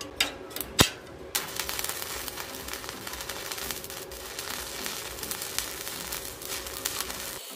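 Stick (arc) welding with a 2.5 mm 6013 electrode: a few sharp clicks as the rod tip touches the plate, then the arc catches about a second and a half in and crackles steadily while a bead is laid.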